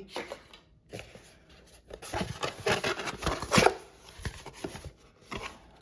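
Packaging being handled: a run of rustles, crinkles and light knocks, busiest from about two to four seconds in, as a product box is searched for remaining parts.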